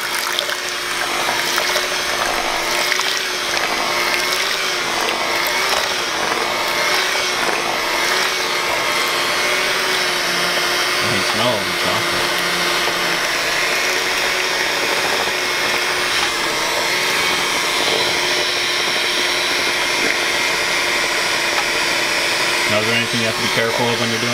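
Handheld electric mixer running steadily, its beaters whisking hot heavy cream and milk chocolate in a stainless steel bowl into truffle ganache. The motor hum wavers slightly in pitch under a steady whir of churning liquid.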